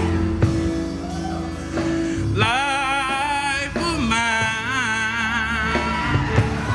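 Gospel song: sustained keyboard accompaniment with a few sharp percussive hits, then from about two and a half seconds in a solo voice sings long notes with a wide vibrato over it.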